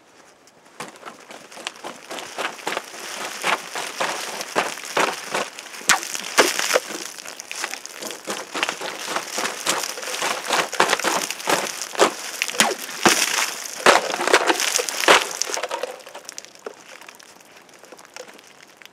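Combat dagger slashing again and again through hanging water-filled plastic bottles: a dense run of sharp plastic cracks and crunches with water splashing. It starts about a second in and dies away a couple of seconds before the end.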